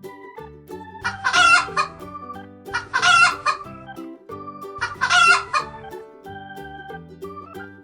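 A chicken calls three times, each call just under a second long and about two seconds apart, over light keyboard background music.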